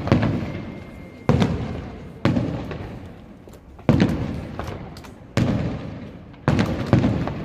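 Aerial fireworks shells bursting one after another: about seven sharp bangs, roughly one a second with two close together near the end, each trailing off in a long rolling echo.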